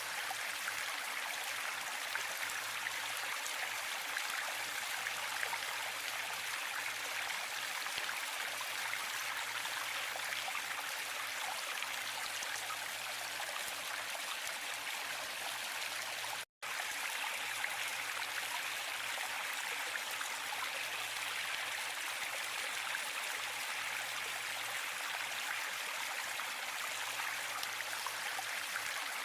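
Waterfall: a steady, even rush of falling water with little low rumble. It cuts out to silence for an instant about sixteen seconds in.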